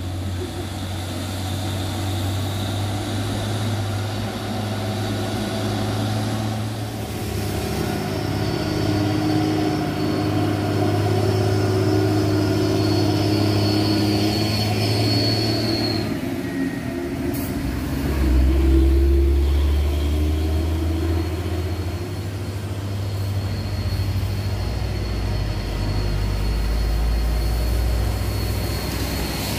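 Hino tanker truck's diesel engine labouring slowly up a steep climb under load, a steady deep drone. About two-thirds of the way through its note drops lower and grows louder as the truck draws near, and a thin high whine above it fades out near the middle.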